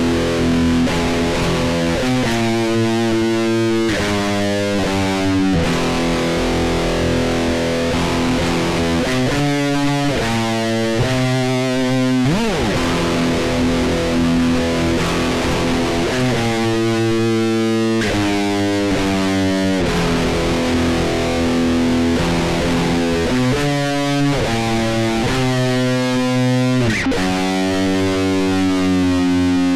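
Intro music led by a distorted electric guitar playing sustained chords that change every second or two.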